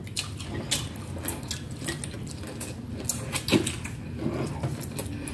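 Chopsticks clicking and scraping against plates as two people eat, with scattered light clicks at irregular moments.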